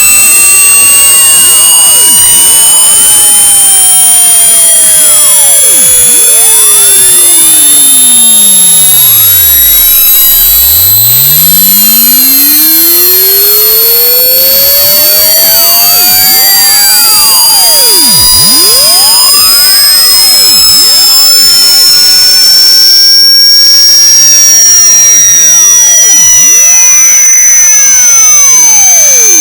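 Very loud synthetic electronic tone, distorted to the point of breaking up: a high whine slowly rising in pitch, crossed by many other whistling tones sweeping up and down. One of them falls to a deep low sound about ten seconds in and climbs again.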